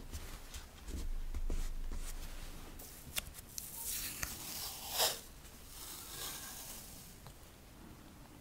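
Washi tape being peeled off its roll, a papery rasp that is loudest about five seconds in and then trails off more quietly. A few light clicks and taps of handling come before it.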